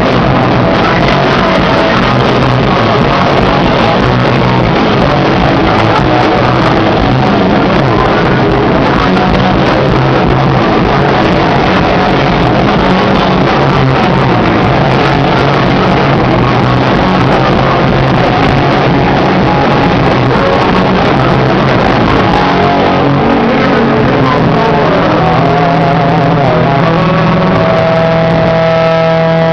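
A rock band playing loud and distorted, with the guitars, bass and drums blurred into one dense wall of sound. About two seconds before the end, the full band drops away and leaves one held, ringing guitar note.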